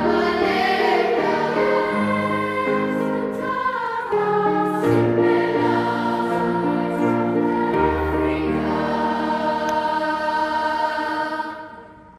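Children's choir singing together over held low accompaniment notes, fading out near the end.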